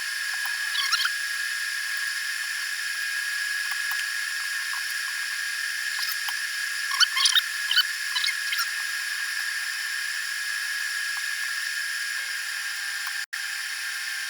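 Steady high whine and hiss of a shop air conditioner running, with a few light clicks and rustles of small parts being handled, mostly in a cluster about halfway through.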